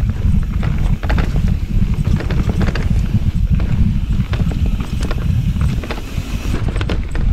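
Transition Relay mountain bike ridden fast downhill on a dirt and leaf singletrack, run without its battery so no motor is heard: wind rumbling on the camera mic, tyres on dirt, and frequent sharp clicks and rattles of the bike over bumps.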